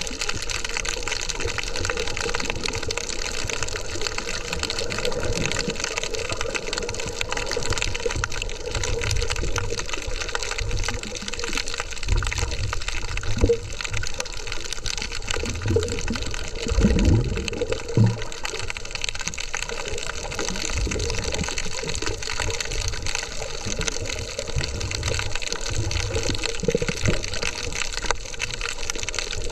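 Water rushing and bubbling around a camera held underwater while snorkeling, a steady muffled wash. A few low thumps come around the middle.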